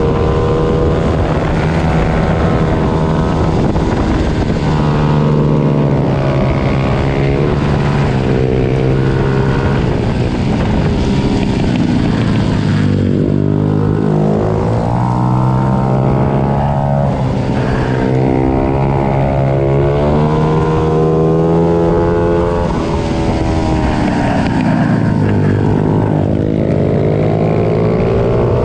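Several small Junior 90-class pit bike engines racing together, revving up and down through the gears with their pitches overlapping. Twice the pitch falls away and then climbs again as the bikes slow and pull away.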